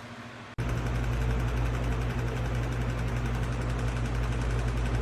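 Lasko 18-inch Cyclone pedestal fan running, a steady motor hum with rushing air and a mechanical buzz; the sound jumps abruptly much louder about half a second in.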